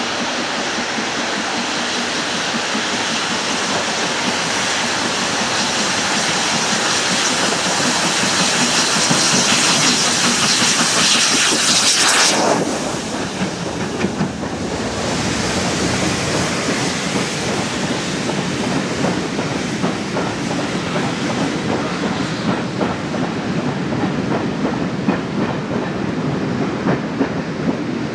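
BR Standard Class 4 4-6-0 steam locomotive No. 75069 pulling out: a loud, steady hiss of steam builds for about twelve seconds and cuts off sharply as the engine passes under. The clatter of its train running beneath follows, with many small sharp knocks.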